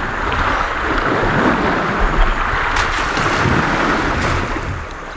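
Steady rush and slosh of river water as an elephant wades through it, with wind rumbling on the microphone.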